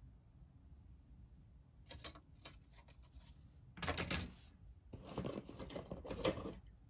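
Plastic model-kit sprues being handled: a few light rustles, a louder clatter about four seconds in as a sprue is laid down on the others, then more rustling from handling.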